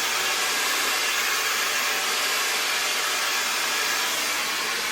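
Handheld hair dryer blowing steadily on its cold-air setting, a loud even rush of air with a faint motor whine, as it is passed over the hair to set the style.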